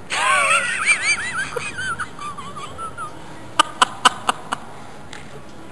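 A person's high, squealing voice in quick rising and falling glides for about three seconds, then five sharp clicks in quick succession around four seconds in.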